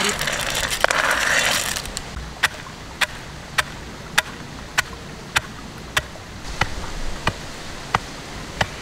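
A rush of noise for about the first two seconds. Then a wooden pestle pounds cashew nuts in a stone mortar with about eleven sharp, evenly spaced knocks, a little under two a second.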